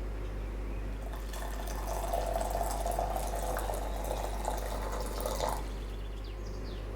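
Water running from a tap for about four seconds, then turned off.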